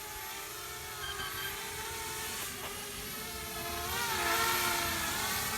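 Parrot Bebop quadcopter flying, its propellers giving a steady whining hum that wavers up and down in pitch and grows louder about four seconds in.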